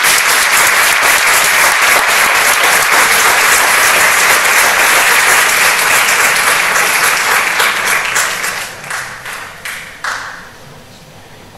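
Audience applauding, full and steady for about eight seconds, then thinning to scattered claps and dying away a couple of seconds later.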